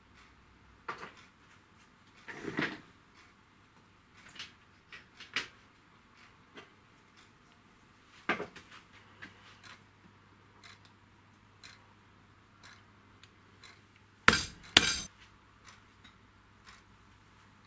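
Scattered light clinks and knocks of hard objects being handled, with two sharp, loud knocks about half a second apart near the end.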